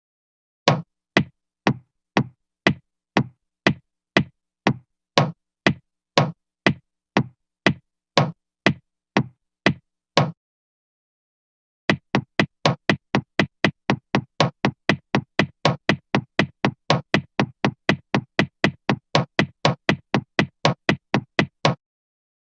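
Cartoon sound effect of short, sharp knocks in an even rhythm, about two a second, then after a brief pause a faster run of about three a second.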